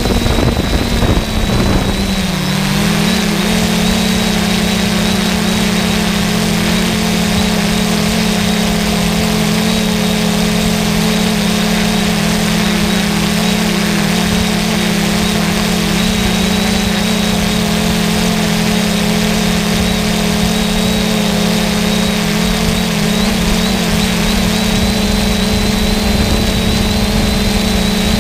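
3DR Solo quadcopter's motors and propellers humming steadily in flight, as heard from the drone's own camera. In the first two seconds the pitch drops slightly and a low rumble fades, then the hum holds even.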